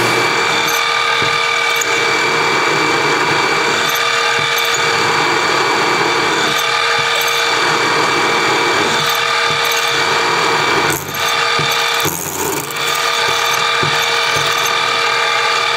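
A power tool running steadily, with its motor hum holding a few steady tones, and two brief dips about eleven and twelve seconds in.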